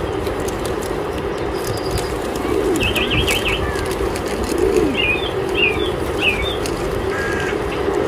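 Wild birds calling over a steady outdoor background hiss: a quick run of about six high chirps about three seconds in, then three short chirps a little later, with a couple of lower sliding calls in between.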